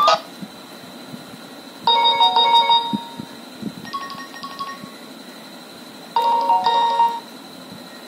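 Nokia 7360 loudspeaker playing short previews of its polyphonic MIDI ringtones as the ring tone list is scrolled: a burst of melody about two seconds in, a fainter one near four seconds, and another just past six seconds, each cut off after about a second.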